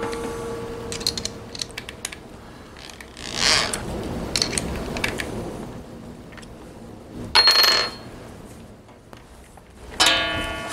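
Metallic clinks and handling of an electric drill's toothed (keyed) chuck being tightened by hand on a twist bit, with a ringing metal tone fading over the first two seconds. A short scraping rasp comes about seven seconds in, and another ringing metal clink near the end.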